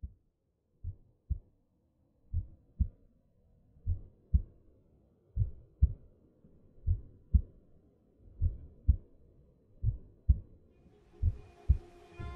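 A slow heartbeat sound: pairs of low lub-dub thumps about every second and a half, growing louder. Near the end, sustained high musical tones fade in.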